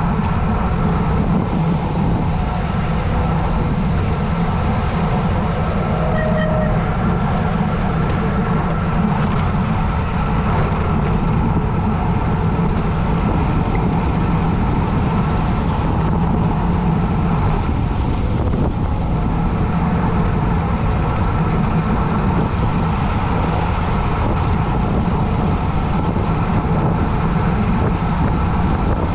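Wind rushing over the microphone of a bicycle on a fast road descent, a loud, steady roar.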